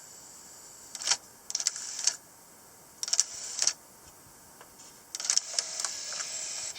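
A&D GX-R75CX cassette deck's tape transport clicking and whirring in four short bursts, its reels driven by an idler gear whose crack has been glued.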